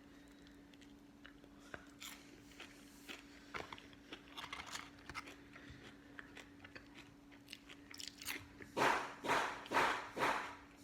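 Close-up chewing and crunching of fried Chick-fil-A food, soft and scattered at first, then four loud crunching bites near the end.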